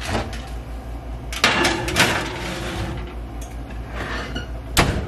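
A metal baking pan set down and slid onto a wire oven rack with a clatter and brief metallic scrape, then the oven door shut with one sharp knock near the end.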